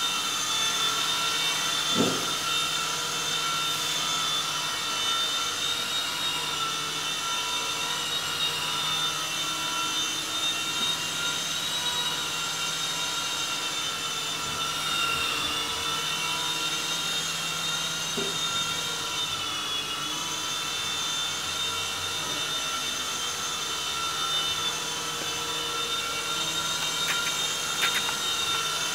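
Electric motors and coaxial rotors of a cheap two-channel toy RC helicopter running steadily as it hovers: a high whine whose pitch wavers a little as the throttle shifts.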